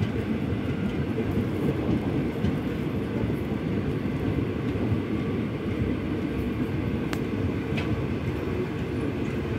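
Steady rumble of a passenger express train's coach running along the track, heard from inside at an open window, with the noise sitting mostly low.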